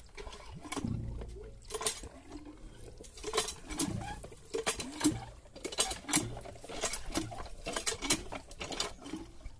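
Hand tube-well pump being worked at: a run of light metal clicks and knocks, roughly two a second, with small squeaks between them.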